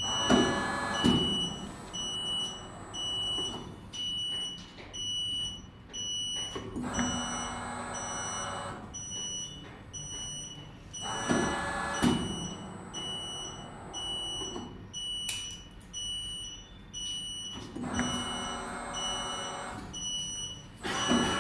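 Hydraulic press-fit machine's electronic warning beeper sounding a steady train of short, high beeps. Behind it are recurring swells of mechanical running noise every few seconds, with a few sharp knocks near the start and around the middle.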